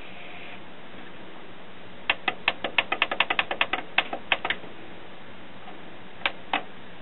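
A fast run of about eighteen sharp clicks over two and a half seconds, then two more clicks, from the front-panel buttons of a Denon DN-T620 CD/cassette deck being pressed to cue up a track.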